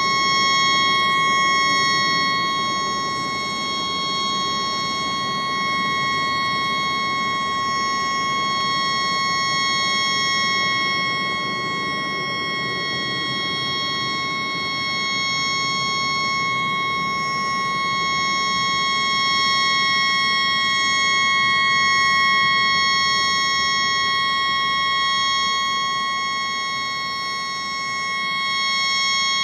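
A tugboat's horn stuck on, sounding one unbroken steady note, made high-pitched by playback at four times speed, over a low background hiss. The horn has malfunctioned and will not shut off.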